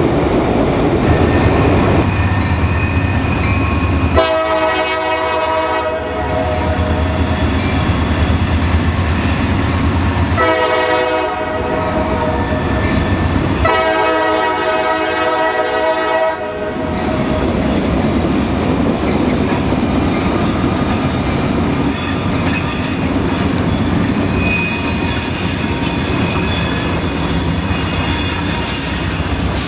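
CSX diesel freight locomotives sounding their horn at a grade crossing: three blasts, a medium one, a short one and a long one, over the engines' rumble. The locomotives and cars then roll by with a steady rumble and the clickety-clack of wheels on the rails.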